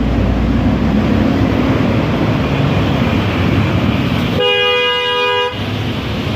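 Steady rumbling traffic noise, with a horn blaring one steady two-note chord for about a second a little past the middle.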